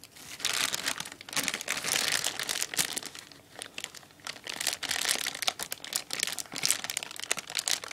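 Plastic packaging crinkling and rustling with many irregular sharp crackles as it is handled and cut open with scissors.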